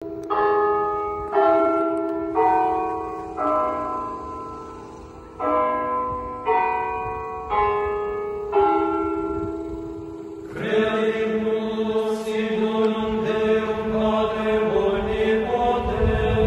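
Church bells struck one at a time, eight strokes at several pitches in a slow tune, each ringing out and fading. About ten and a half seconds in, voices take over, chanting in unison on sustained notes.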